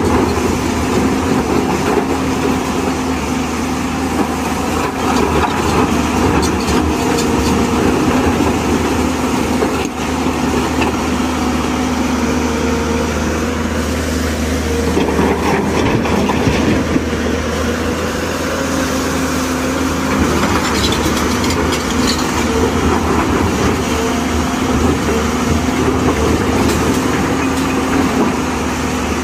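Tata Hitachi EX215 excavator's diesel engine running steadily as the machine works, a constant low hum with occasional faint clicks and clatter.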